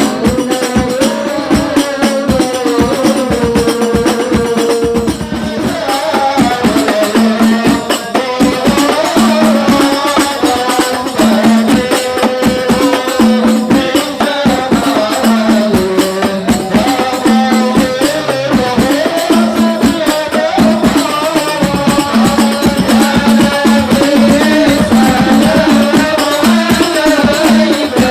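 Music: a sung melody over a steady, fast beat of hand percussion with tambourine jingles.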